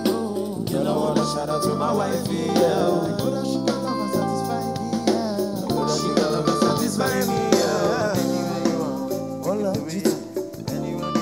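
Live band music: drum kit, bass and keyboards playing an upbeat groove, with a voice singing over it.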